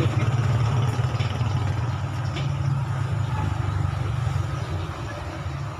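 A motor vehicle engine idling close by, a steady low drone with a fast pulse that slowly grows quieter over the last few seconds.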